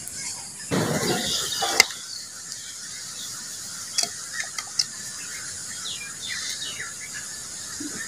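Hands handling raw fish on bamboo skewers over a ceramic bowl. A rustling bump comes about a second in, then a few sharp clicks of stick and fish against the bowl.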